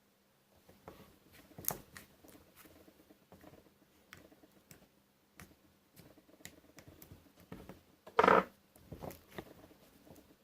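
Slime being squeezed and stretched by hand, making irregular small clicks and pops, with one louder pop about eight seconds in.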